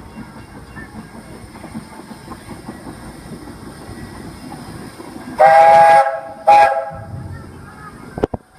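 Steam locomotive whistle of the Roger E. Broggie engine blowing one long blast and then a short one, over the low rumble and hiss of the steam train.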